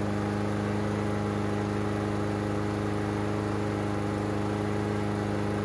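Honda GCV160 single-cylinder four-stroke engine on a walk-behind lawn mower running steadily and evenly, without missing, with a fresh air filter in place of one that had been saturated with oil and choking the engine.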